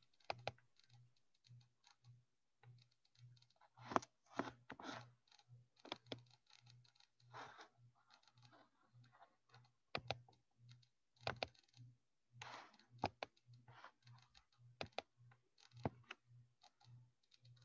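Faint, irregular computer keyboard typing and mouse clicks from someone working on a computer, over a faint low hum that pulses about twice a second.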